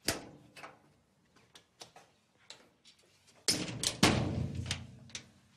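A knock at the start and a few light steps on a hard floor, then a door shut with two bangs about three and a half seconds in, its low rumble fading over about a second.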